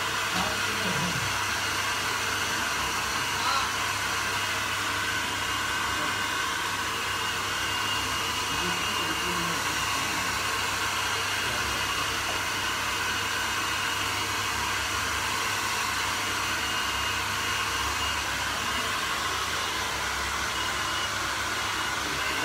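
Handheld hair dryer blowing steadily: an even rush of air and motor with a faint high whine.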